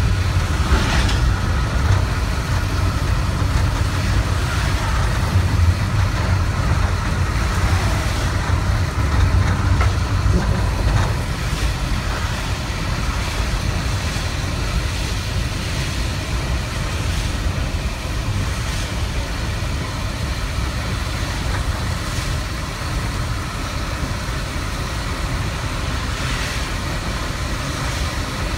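Steady in-cabin noise of a vehicle driving at highway speed in heavy rain: a low engine and road rumble with the hiss of tyres on the wet pavement.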